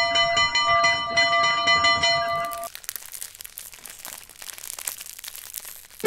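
A stick run along the bars of a metal railing: a quick series of ringing clangs, about four a second, for the first two and a half seconds. Then a dense crackling, crinkling noise.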